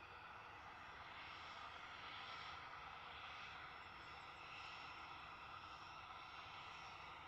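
Faint, steady aircraft noise heard from afar, swelling slightly about two seconds in.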